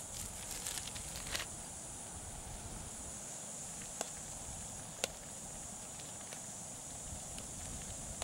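A soup-mix envelope rustling as it is shaken out over a small backpacking pot, then a metal spoon stirring soup and rice in the pot, with two sharp clinks of the spoon on the pot about four and five seconds in. A steady high hiss runs underneath.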